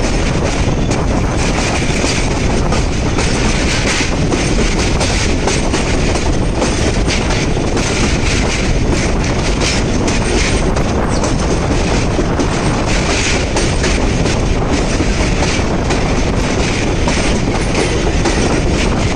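Passenger train coach running at speed across a river bridge, heard from its open doorway. The wheels rumble steadily on the rails, with irregular clicks at the rail joints.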